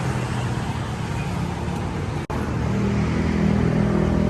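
Road traffic noise with a motor vehicle engine running close by, growing louder in the second half; the sound cuts out for an instant a little over two seconds in.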